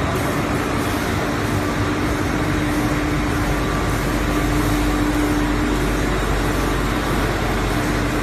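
Automatic film lamination machine running: a steady mechanical noise with a steady hum that drops out briefly about six seconds in.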